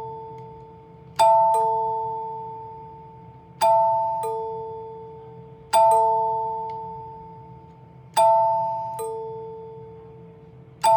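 Vintage NuTone L-31 Pacesetter door chime, with its cover off, rung five times at about two-second intervals. Each push fires the solenoid plungers into the metal tone bars for a two-note chord. A moment later a single lower note sounds as a plunger rebounds, and each ringing dies away slowly.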